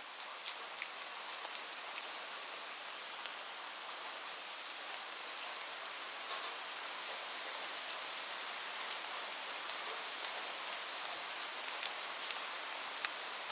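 Light rain falling: a steady hiss with scattered sharper ticks of individual drops, swelling slightly over the first couple of seconds.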